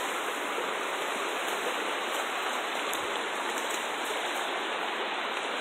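Steady rushing of a fast-flowing stream, an even wash of water noise that holds constant throughout.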